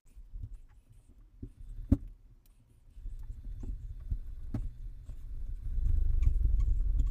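Exercise bike being pedalled hard: a low rumble from the bike that builds and is loudest in the last second or so, with scattered knocks and clicks, the sharpest about two seconds in.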